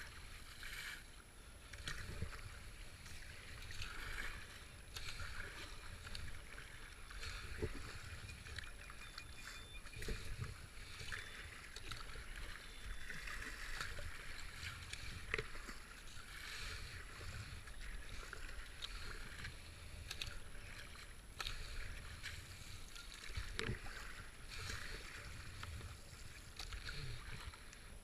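Kayak paddle strokes: a double-bladed paddle dipping and pulling through calm river water in a steady rhythm of about one stroke a second, with water washing along the hull of a racing kayak.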